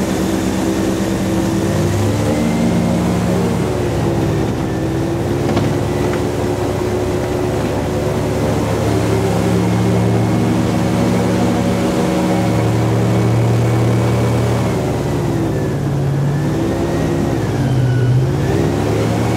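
Airboat's engine and propeller running loud and steady while crossing river ice. The revs dip and come back up near the end.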